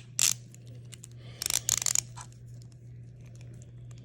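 Small metal clicks from handling an Engineer DR-54 palm ratchet stubby screwdriver: one sharp click at the start, then a quick rattling run of clicks about a second and a half in.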